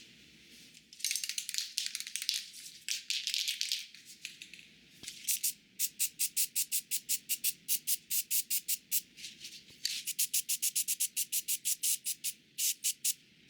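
Hand trigger spray bottle misting liquid in short hisses: uneven spraying at first, then rapid squeezes of about five a second from about five seconds in, with a brief pause near ten seconds.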